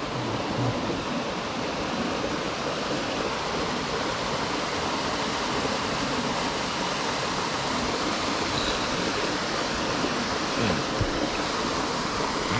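Steady rushing of a small mountain stream spilling over a short rock cascade into a pool.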